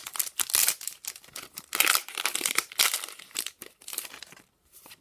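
Crinkling and rustling of a foil booster-pack wrapper and trading cards being handled, in irregular bursts with a short pause near the end.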